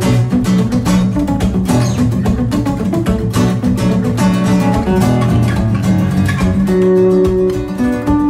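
Background music: fast-strummed acoustic guitar playing chords with a melody over them.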